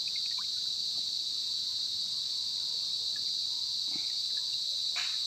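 Steady, high-pitched chorus of insects, an unbroken shrill drone.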